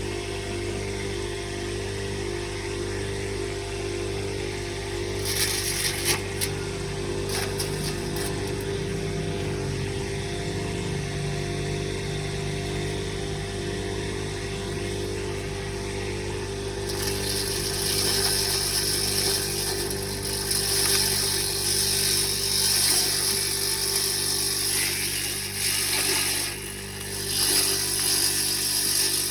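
Grass chopper machine running steadily, with a few clattering strokes about five to eight seconds in. About seventeen seconds in, a louder, harsher chopping noise starts and carries on to the end.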